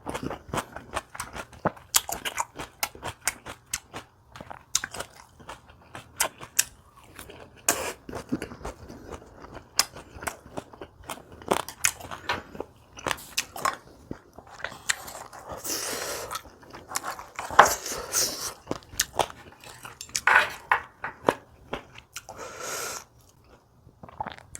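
Close-miked eating of crunchy kimchi: repeated crisp crunching bites and wet chewing.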